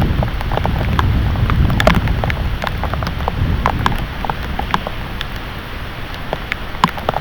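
Heavy thunderstorm rain with many separate drops ticking sharply on a nearby surface, over a low gusty rumble that eases over the first few seconds.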